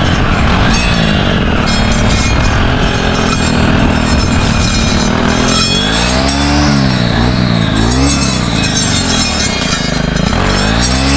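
Brush cutter fitted with a saw blade running hard while cutting thick brush, its small engine revving up and dropping back several times, around six seconds in and again near the end.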